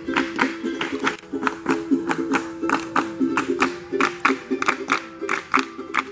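Small acoustic string instrument strummed in a quick, steady rhythm, about four strums a second.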